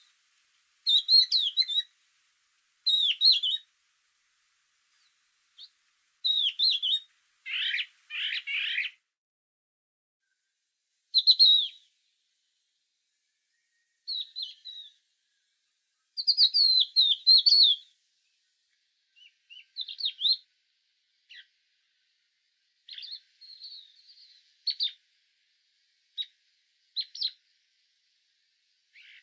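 Songbirds singing short, rapid chirping and warbling phrases, each about a second long, separated by pauses of one to three seconds with almost nothing between them.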